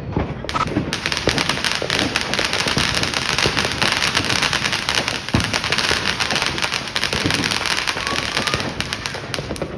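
Fireworks crackling: a dense run of rapid pops that merge into one continuous crackle, starting about a second in and thinning out near the end.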